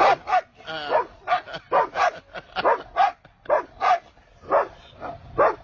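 A dog barking in a quick run of short, pitched barks, about three a second, with a brief pause about four seconds in.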